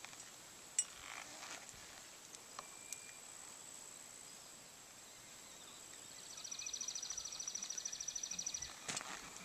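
Quiet outdoor ambience with a high, rapid insect trill that starts about six seconds in and lasts about two and a half seconds. A single sharp click comes under a second in.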